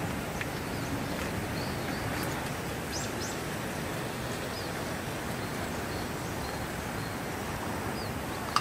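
Outdoor ambience: a steady rushing hiss with a few short, high bird chirps scattered through it, and one sharp click just before the end.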